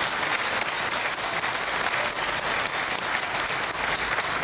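A crowd applauding: many hands clapping at a steady level.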